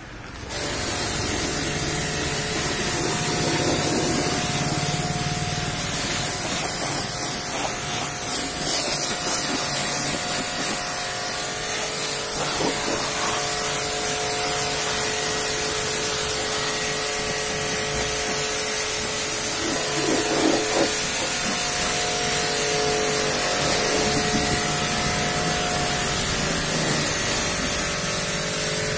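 Pressure washer spraying a high-pressure water jet onto a car's bodywork and wheel, a steady hiss, with the washer's pump motor humming underneath.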